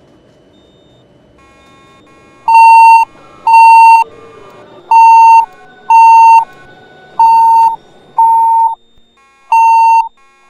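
Fire alarm system sounding its alert tone during a test: loud, steady-pitched electronic beeps of about half a second, in pairs about a second apart, the pairs repeating every two and a half seconds or so. It starts about two and a half seconds in, over a faint low rumble of station background noise.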